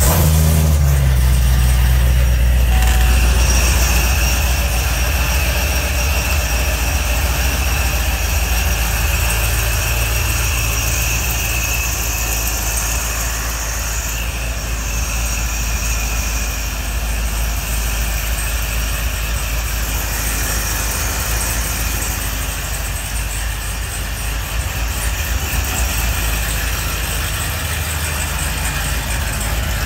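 ProCharger-supercharged V8 of a C7 Corvette catching and flaring to a high idle, then settling over the first few seconds into a steady idle.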